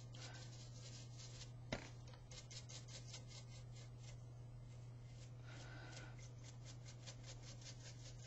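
Damp stiff stencil brush dabbing and scrubbing over a painted surface of molded roses, lifting off acrylic paint: a faint run of quick, short scratchy strokes, with a single click a couple of seconds in.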